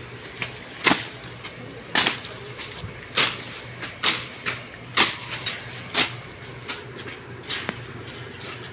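Bolo knife slashing through grass and weeds by hand, a sharp cutting stroke about once a second with lighter hits in between.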